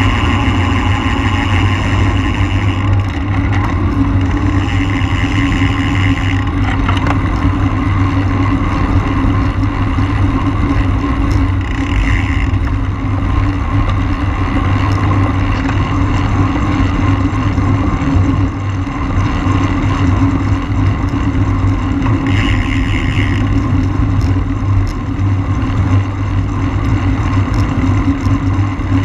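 Steady wind rush and tyre noise from a road racing bicycle, buffeting on the microphone, with a higher buzz coming and going several times.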